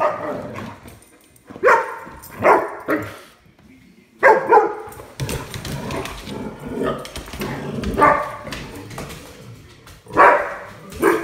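Dog barking in play: a string of short barks, a second or two apart.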